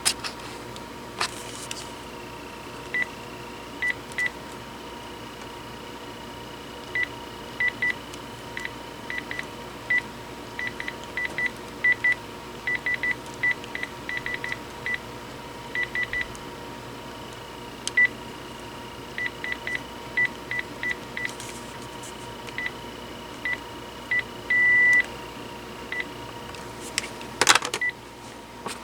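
Key-press beeps from a Panasonic KX-TG6841 cordless phone base as its buttons are pressed to step through the menus: short single-pitch beeps, sometimes in quick runs and sometimes spaced out, with one longer beep near the end. A brief clatter of handling comes just before the end.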